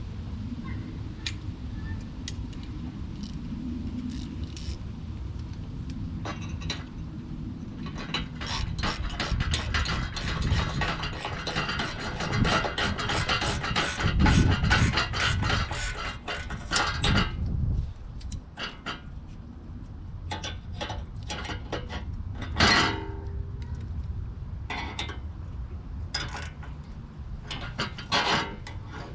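Hand socket ratchet clicking as small nuts are tightened. There is a long run of rapid clicks in the middle and a few shorter runs near the end.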